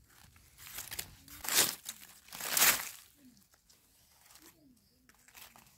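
Dry fallen leaves crackling and rustling as the leaf litter is disturbed, in two short loud bursts about a second apart, then fainter rustles.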